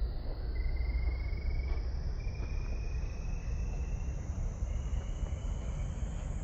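Crickets trilling: a high, evenly pulsed trill in stretches of a second or two with brief breaks, over a steady low rumble.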